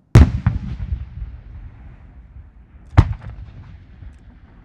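A large aerial firework shell bursting into a multi-ring peony: a sharp bang that echoes and trails off over a couple of seconds. A second sharp bang about three seconds in also trails away.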